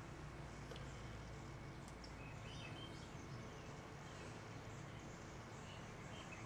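Low steady background hiss with faint, scattered bird chirps and a couple of faint clicks.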